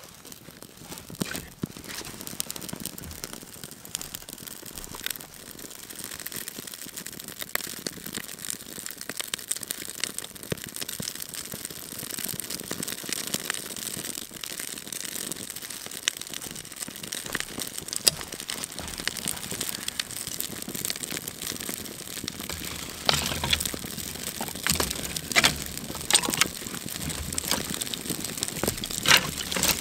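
Campfire of dry sticks and twigs crackling as it burns, with louder snaps and pops coming more often toward the end.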